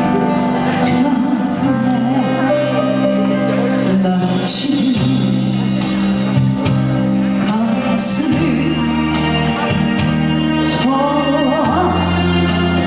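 A trot song played through a PA over a backing track, with a singer's voice singing in a wavering vibrato.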